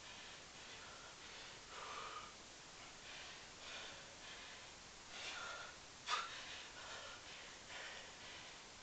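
A man's heavy breathing from the exertion of a long set of one-leg pistol squats: a steady string of short, faint breaths, with one sharper, louder exhale about six seconds in.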